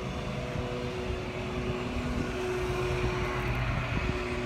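Steady engine drone: a low rumble with a couple of steady hum tones that grow a little stronger in the middle.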